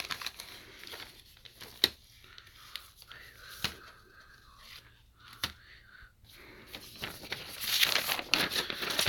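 Paper being handled: short rustles, crinkles and small clicks, with a denser stretch of rustling near the end as the sheets are unfolded.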